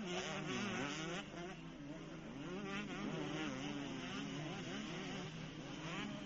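Several motocross bikes' engines buzzing as they race past, their pitch rising and falling over and over as the riders work the throttle and shift.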